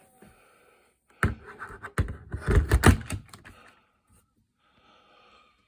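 Plastic knocks and scraping as a hand vacuum cleaner is handled and set into its charging dock: a cluster of clunks starting about a second in, loudest near the middle, then quiet.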